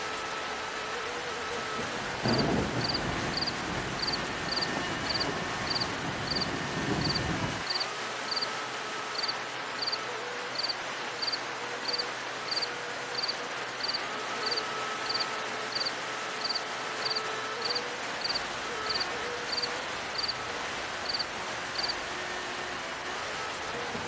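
Steady rain, with a long low rumble of thunder starting about two seconds in and lasting about five seconds. A faint, regular high chirp repeats about twice a second through most of it.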